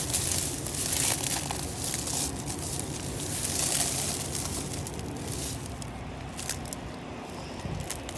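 Close, continuous crackling and crunching rustle with many small sharp crackles, over a steady low rumble.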